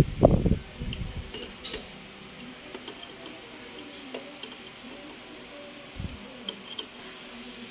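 Socket ratchet clicking as it tightens the nut on a scooter's horn mounting bracket: a scattering of separate sharp metallic ticks. A knock of the tool against the bracket opens it, and a dull thump comes about six seconds in.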